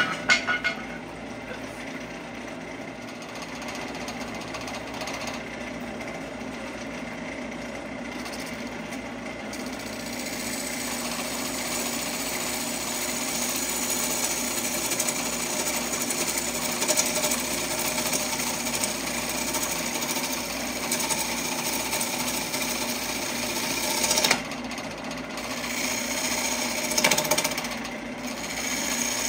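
Wood lathe spinning a glued-up blank of several woods while a bowl gouge cuts it, a steady rattling chatter of tool on wood over the lathe's hum. It swells louder twice near the end.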